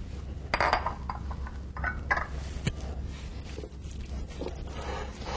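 Spoon stirring lobster meat into mayonnaise dressing in a large ceramic mixing bowl: irregular scrapes and knocks of the spoon against the bowl, loudest in the first three seconds and softer near the end.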